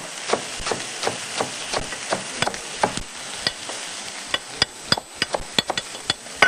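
Kitchen knife chopping parsley on a cutting board, quick knocks about three a second, over steady sizzling of onion, garlic and peppers frying in a pan.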